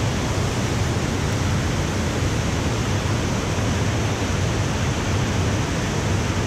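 Steady, even rush of a FlowRider wave simulator: a fast sheet of pumped water racing up the padded slope and breaking into white spray.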